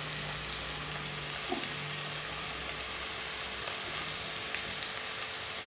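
Onions and chopped tomatoes sizzling steadily in a frying pan.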